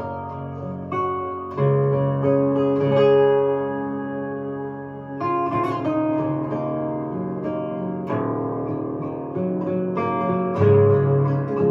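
An 18-string harp guitar played fingerstyle with a thumbpick through an amplifier, with plucked melody notes over deep, ringing bass strings. New bass notes come in about a second and a half, five and ten and a half seconds in.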